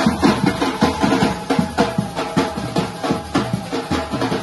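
Percussion group playing slung side drums and bass drums with sticks together, a loud, fast and steady drum rhythm.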